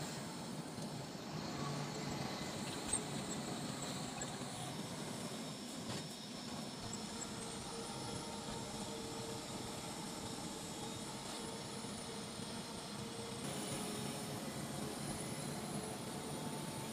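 Steady engine and road noise inside a moving bus cabin, with one short sharp click about three seconds in and a faint steady hum through the middle.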